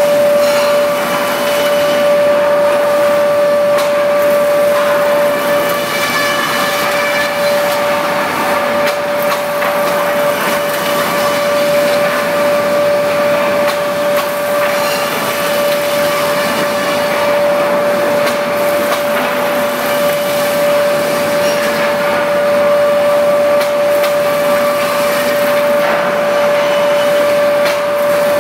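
REX wood planing machine running steadily with a constant high whine.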